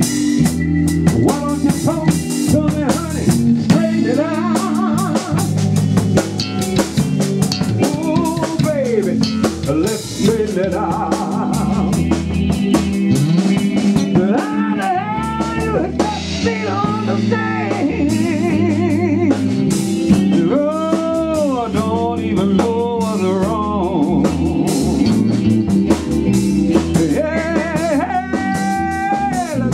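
Live band playing a slow blues-soul groove: drum kit with rimshots on the snare, bass, and an electric guitar playing lead lines with notes that bend up and fall back.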